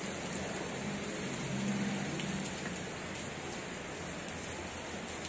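Steady, even rain-like hiss, with a few faint knocks as aluminium airgun chambers are handled and moved on a carpet.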